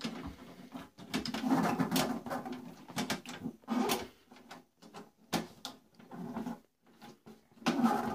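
Hands handling the case of a HZXVOGEN MIG 250 welding machine: irregular clicks, knocks and rubbing as its cover panel is worked. The welder is not running.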